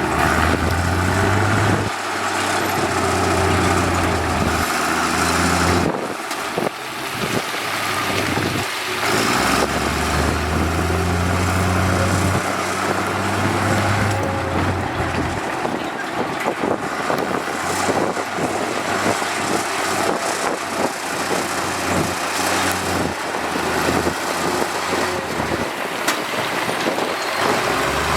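Diesel engines of heavy road-construction machinery running, with a low engine drone that comes and goes in stretches of a few seconds over a steady rumble and clatter.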